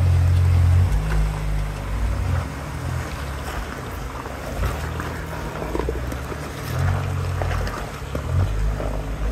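Wind buffeting the microphone in gusts over the low rumble of a Jeep Wrangler's V6 engine crawling slowly down a rocky, muddy slope.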